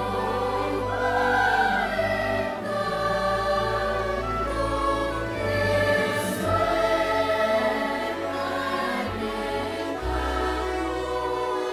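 Choral music: a choir singing long held notes over a low, steady bass.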